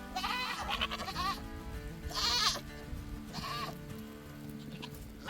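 Goats bleating about three times, short wavering calls, over background music with long held notes.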